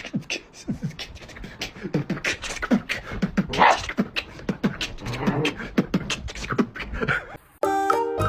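A quick, irregular run of sharp clicks mixed with short voice-like grunts and squeaks, much like mouth percussion. A tinkling music track starts near the end.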